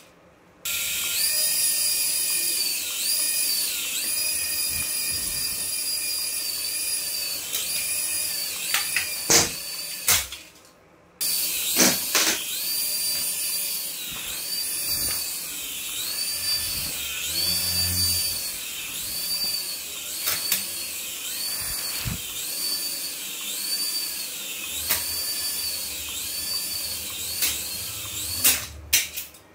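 Toy RC helicopter's small electric rotor motors whining high-pitched, the pitch rising and falling again and again as it flies. A few sharp knocks, and the sound drops out briefly twice.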